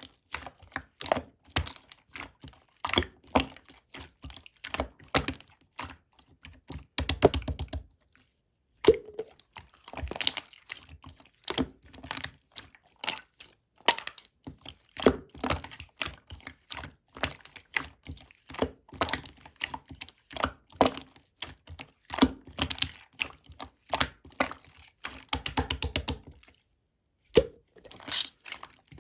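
Slime being squeezed and pressed by hand, giving a steady run of sharp crackling clicks and pops from trapped air. Two short spells of rapid, dense popping come about seven seconds in and again near the end.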